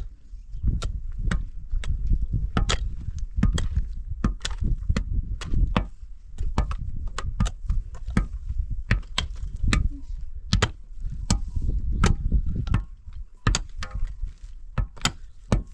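Repeated sharp blows, about two a second with a couple of short pauses, over a low rumble.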